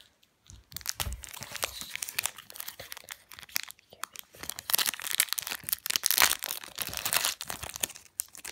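Foil booster pack wrapper crinkling and tearing as it is squeezed and torn open by hand: a dense run of crackles that starts about a second in and gets louder in the second half.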